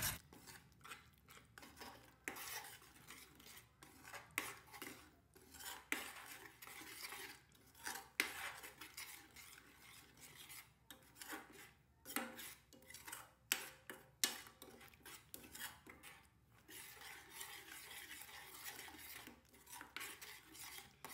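A steel ladle scraping and clinking against a stainless steel kadhai as thick ground onion-tomato masala is stirred and fried on low flame, in faint, irregular strokes.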